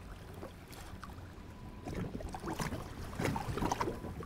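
Small waves lapping and slapping irregularly against a plastic kayak hull, busier from about two seconds in, over a low rumble of wind on the microphone.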